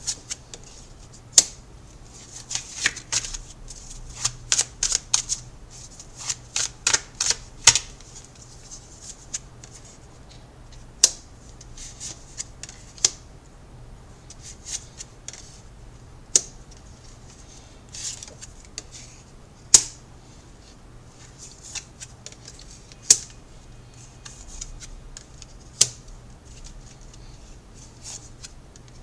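A deck of tarot cards being shuffled by hand, with crisp card snaps and clicks. They come in a quick flurry for the first several seconds, then as single snaps every second or two.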